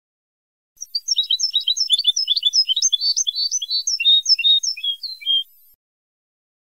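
European goldfinch song from an old Moroccan Ceuta-style tutor tape: a fast, continuous run of high chirps and twittering trills lasting about five seconds, starting about a second in and stopping abruptly.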